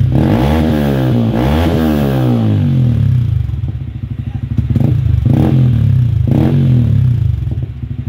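Yamaha Sniper 155 single-cylinder engine running through an MVR1 fully adjustable aftermarket muffler, revved up and down twice near the start, then settling to a steady idle.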